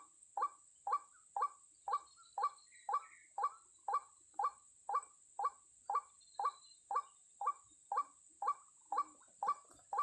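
White-breasted waterhen calls: a short call repeated evenly about twice a second, over a faint steady high hiss.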